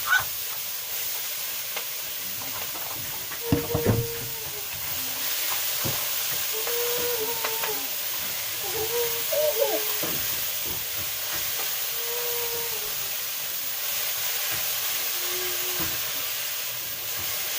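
Vegetables and tomatoes frying in a pan with a steady sizzle. A few sharp knocks about three and a half to four seconds in, as of a spoon against the pan, and several short faint voice-like sounds over it.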